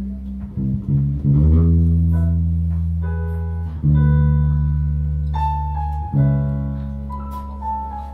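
Instrumental music with guitar and bass: ringing chords struck about every two seconds, with a higher melody line of single notes over them.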